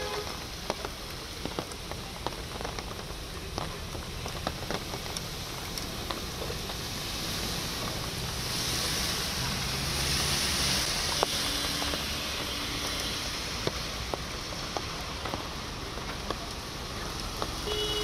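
Steady rushing noise of rain and floodwater splashing on a waterlogged road as cars drive through it, with scattered small ticks. It grows louder for a few seconds around the middle.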